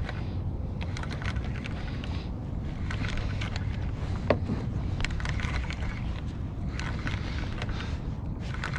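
Wind rumbling on the microphone over water lapping against a plastic kayak hull, with scattered small knocks and clicks and one sharper knock about four seconds in.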